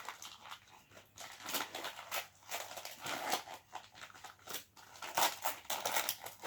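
Packaging crinkling and rustling in quick irregular bursts as a small toy is unwrapped by hand.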